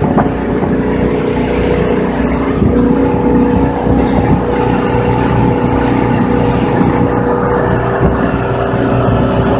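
Motorboat engine running at cruising speed: a steady drone over the rush of water and wind as the boat travels.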